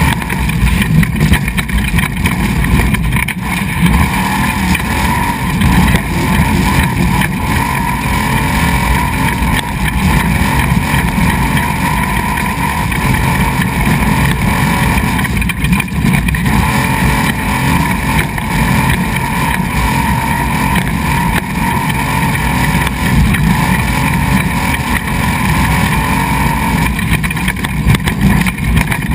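Off-road desert race vehicle at speed on a gravel track: its engine runs hard in a loud, steady drone over the rumble of the ride.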